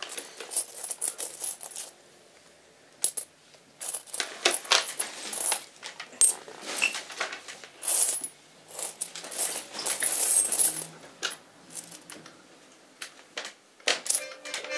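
Irregular metallic clinking and rattling: clusters of sharp clicks with a faint ringing, broken by a near-quiet gap about two seconds in and another shorter one near twelve seconds.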